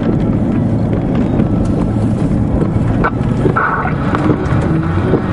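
Engine and road noise of a moving car heard from inside the cabin, a steady low rumble with a few knocks about three seconds in.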